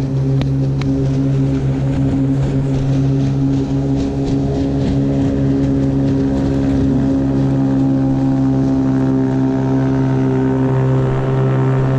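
Motor running steadily at an even pitch, a continuous hum, with a few sharp clicks in the first second.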